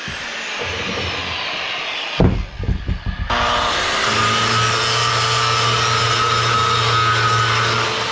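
An electric cutting tool on the steel frame horn: it winds down with a falling whine, a few metal knocks follow about two seconds in, then it starts again, spins up quickly and runs steadily until it stops near the end.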